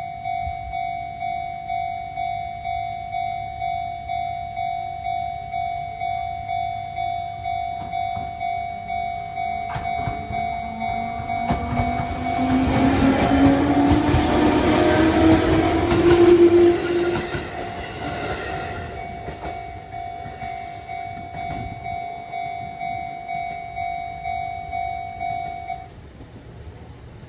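Japanese level crossing warning bell dinging at an even, steady rhythm. A train passes through about 12 to 18 seconds in, with wheel noise and a rising whine. The bell stops a little before the end.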